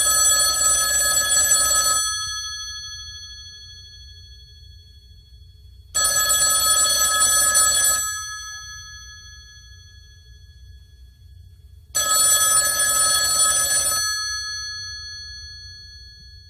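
A telephone bell ringing three times, each ring about two seconds long and starting about six seconds after the last, ringing out after each.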